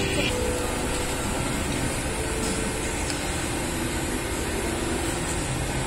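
Steady hum and noise of factory machinery, with plastic film crinkling briefly at the start.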